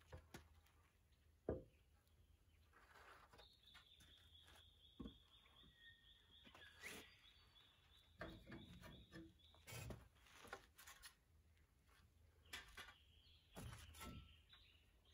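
Quiet, with scattered faint knocks of a timber beam being lifted and set into place on wooden posts. A high steady tone runs for several seconds from a few seconds in, and again briefly near the end.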